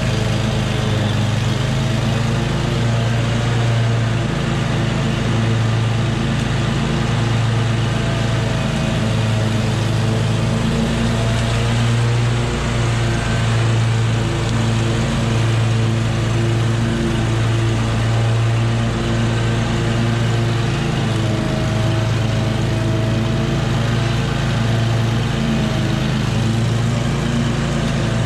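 Scag V-Ride II stand-on mower's engine running steadily, with its blades cutting through tall, overgrown Bermuda grass.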